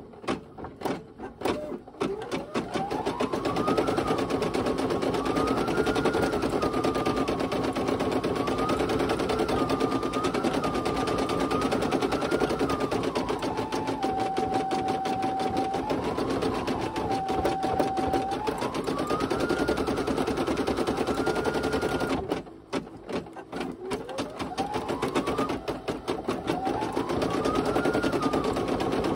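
Brother PE800 embroidery machine stitching out a design, a fast steady patter of stitches under a motor whine that rises and falls as the stitching speed changes. It pauses briefly with a few clicks at the start and again about 22 seconds in, then winds back up to speed with a rising whine.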